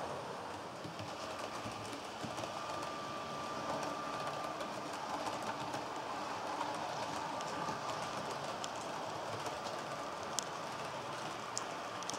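Model train running steadily along the track, with two sharp clicks near the end.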